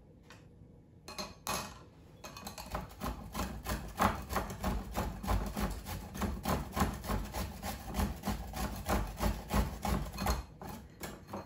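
A purple daikon radish being grated on a handheld metal grater: quick, repeated scraping strokes that start about two seconds in and continue almost to the end.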